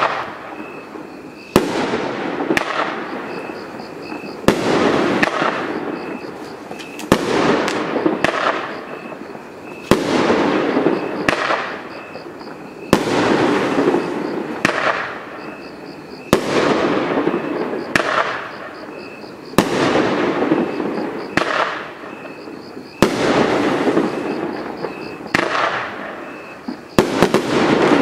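Badaboom 'Mike Drop' multi-shot firework cake firing shot after shot, about every three seconds. Each shot is a pair of sharp bangs, the launch and the break, followed by a crackling, hissing tail that fades before the next one.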